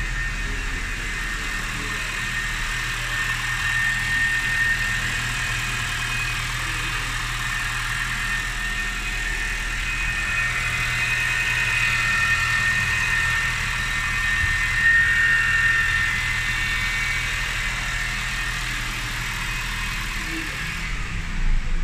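Honda Vezel's engine idling steadily while the dual clutch is being calibrated, with a faint high whine over it. The mechanic puts a light noise down to a bearing in the repaired, not new, clutch and expects it to settle once the car is driven.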